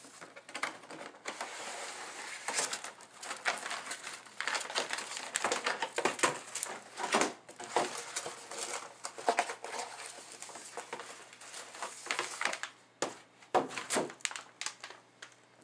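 Rustling and crinkling of cardboard and plastic packaging as a motherboard box is opened and its contents handled, with many sharp clicks and taps; it quietens to a few scattered clicks near the end.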